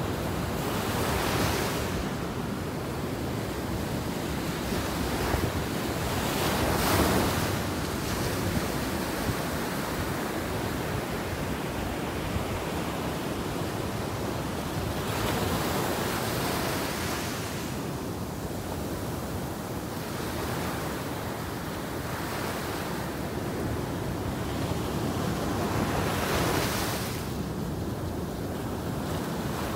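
Ocean surf breaking and washing up a sandy beach in a steady rush, swelling louder four times as bigger waves break. Wind buffets the microphone.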